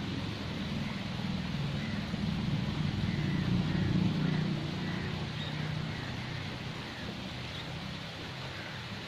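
A low engine hum that swells to its loudest about four seconds in and then fades away, with faint high chirps repeating in the background.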